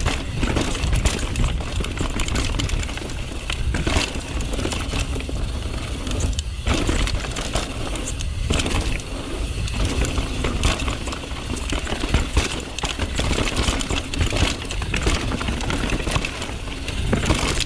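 Downhill mountain bike riding fast over a rocky trail: a constant rattle and clatter of tyres, frame and chain knocking over rocks, with wind rumbling on the mic.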